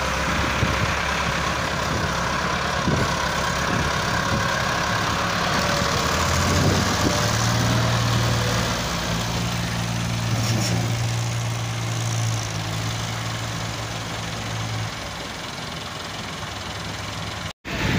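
Massey Ferguson 385 tractor's four-cylinder diesel engine running, a steady low drone that grows stronger about a third of the way in and eases off near the end.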